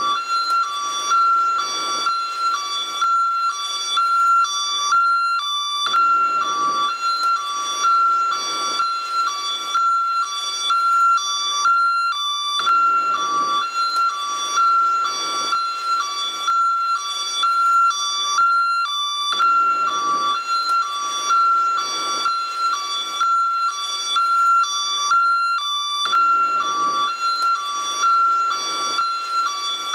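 Ambulance hi-lo siren: an electronic two-tone siren alternating steadily between a high and a low pitch, repeating evenly without a break.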